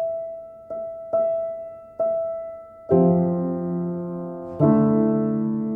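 Soft piano music: a single high note struck four times, then two full chords that ring on.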